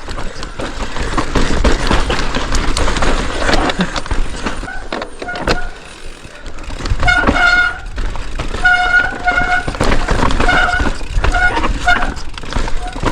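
Mountain bike riding over rough, rocky trail: steady wind and trail rattle on the helmet camera with many small knocks. From about seven seconds in, disc brakes squeal in several short, high-pitched bursts as the rider brakes.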